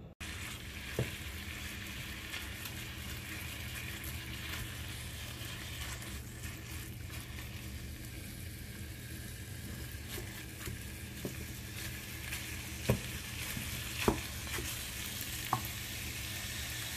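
Ground beef sizzling in a frying pan as a plastic Mix 'N Chop meat chopper breaks it up and stirs it, with a few sharp clicks of the tool against the pan, once near the start and three times near the end.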